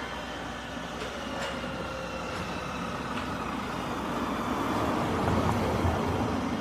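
Street traffic ambience: steady road noise, with a vehicle's low rumble growing louder in the second half.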